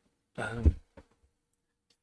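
A man's short, wordless vocal sound about half a second in, with a sharp low thump in the middle of it, and a faint click a moment later.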